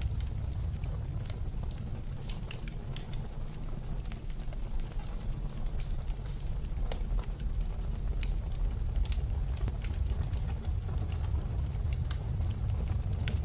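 Wood fire crackling with irregular sharp pops over a steady low rumble of blizzard wind.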